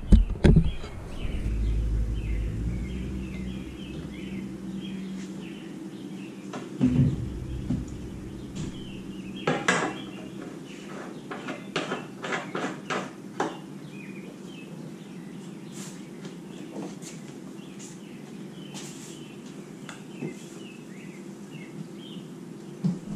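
Scattered metal clinks and knocks from hands working on a snowblower engine, with a cluster of sharp clicks about halfway through, over a steady low hum.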